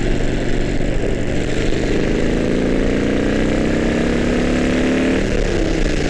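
Harley-Davidson V-twin motorcycle engine accelerating, its pitch rising steadily for a few seconds, then dropping at an upshift near the end and starting to climb again. A steady wind rush on the helmet mic runs underneath.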